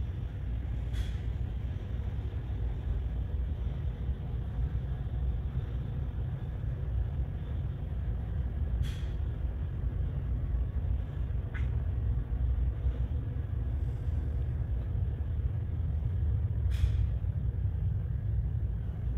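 Steady low rumble of a ferry under way, its engines and hull vibration heard inside a passenger lounge, with a few faint clicks scattered through it.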